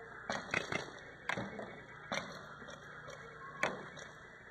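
Paintball markers firing: a string of about seven sharp pops at uneven intervals, several quick ones in the first second and then single shots spread over the next few seconds.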